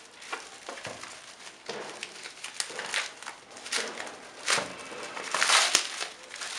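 Bubble wrap crinkling and rustling as it is handled and pulled off a packed box. The rustling comes and goes unevenly and is loudest about five and a half seconds in, with one sharp click.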